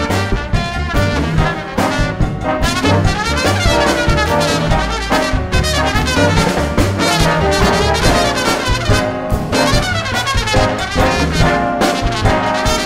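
Jazz big band playing a Latin jazz tune built on a repeating two-bar montuno, with trombones and trumpets to the fore over drums and hand percussion.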